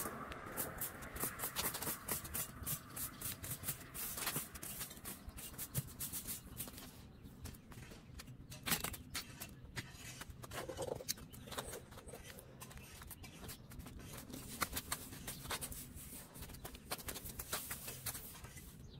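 Plastic broom bristles scraping over concrete around a steel drain grate in short, irregular sweeping strokes.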